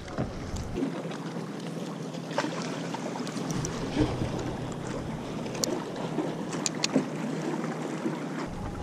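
Water lapping and sloshing against a plastic sit-on-top kayak hull, with a few small clicks and taps scattered through it.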